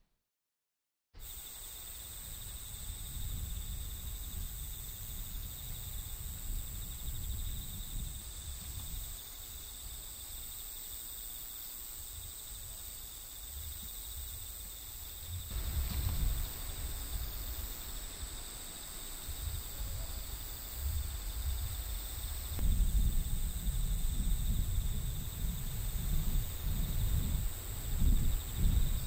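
Insects chirring steadily at two high pitches, starting about a second in after a brief silence. A low rumble joins about 15 seconds in and grows louder from about 22 seconds.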